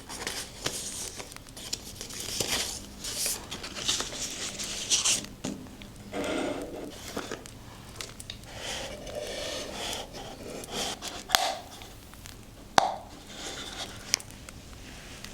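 Scrapbooking papers and materials being handled, rustling and crinkling in uneven bursts, with a few sharp clicks in the second half.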